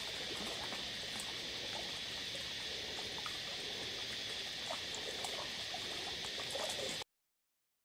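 Steady high-pitched insect chorus, with scattered faint clicks and chirps, cutting off suddenly near the end.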